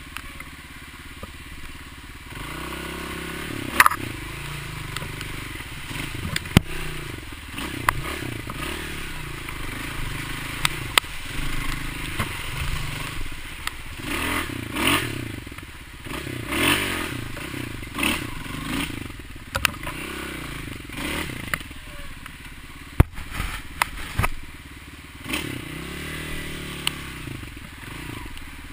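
Dirt bike engine revving up and down again and again as it is ridden along a rough trail, with several sharp knocks and some clatter from the bike over bumps.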